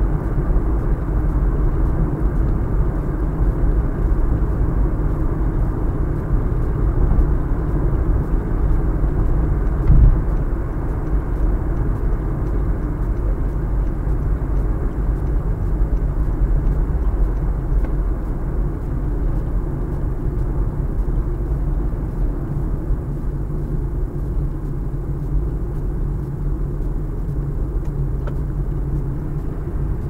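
Honda Fit cruising on an expressway, heard from inside the cabin: a steady low rumble of road, tyre and engine noise. A single thump about ten seconds in.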